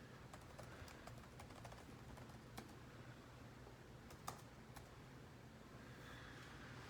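Faint, irregular keyboard typing clicks over a low steady hum, with a few sharper key clicks around the middle.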